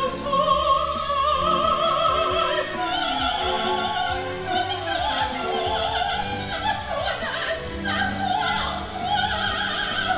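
Operatic singing with wide vibrato over orchestral accompaniment, from a live staged opera performance.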